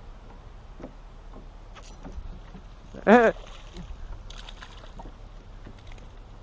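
Small boat sounds over steady low wind rumble: scattered light knocks of gear in the boat. About three seconds in comes one short, loud pitched call that rises and falls.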